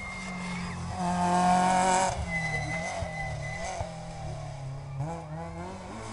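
Small rally car's engine revving hard as it passes, pitch climbing and falling with the gear changes, loudest about a second in.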